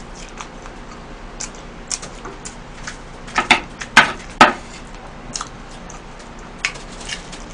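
A spoon clinks and scrapes against a metal baking tray as leftover cheese spaghetti is scooped up, giving a few sharp clicks between about three and a half and four and a half seconds in. Soft scattered clicks of chewing and eating fall between them.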